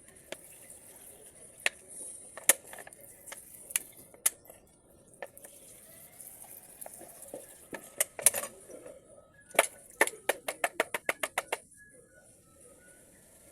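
Small metal parts clicking and clinking as they are handled and set down. Near the end comes a quick run of about a dozen light clicks, roughly six a second.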